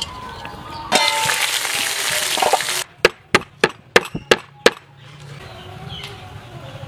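A loud, even hiss for about two seconds. Then a cleaver chops lemongrass on a wooden chopping board with about six sharp strikes in quick succession.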